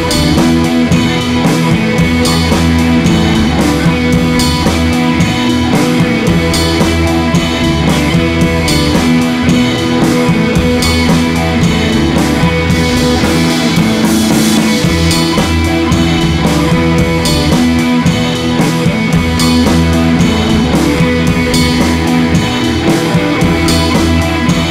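Background music: a rock track with guitar and drums playing a steady beat.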